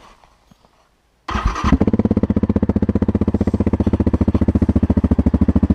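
Yamaha Grizzly ATV's single-cylinder four-stroke engine, exhaling through an aftermarket R2 Racing exhaust tip, starts about a second in and settles straight into a steady idle with an even thump.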